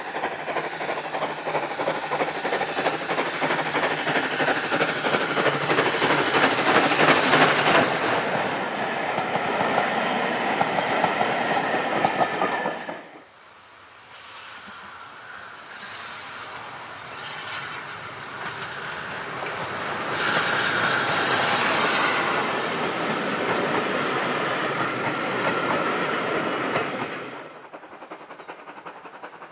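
Small steam locomotives hauling passenger coaches past at close range, the wheels clacking over the rail joints. The sound is loudest in the first dozen seconds, cuts suddenly to a quieter passing about thirteen seconds in, swells again, and drops suddenly near the end.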